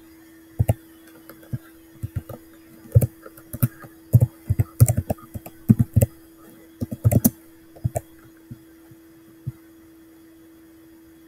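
Computer keyboard being typed on: irregular key clicks in quick runs, thinning out and stopping about nine and a half seconds in, over a faint steady hum.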